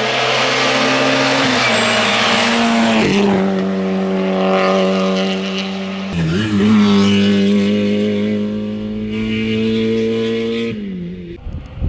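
Rally car engine running at high revs, its note steady, with two gear changes about 3 and 6 seconds in, then cutting off abruptly near the end.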